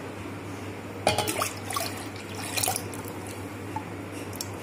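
Mango juice being poured from a bowl into a steel pot and scraped out with a silicone spatula: liquid splashing, with light clinks and scrapes against the steel starting about a second in. A steady low hum runs underneath.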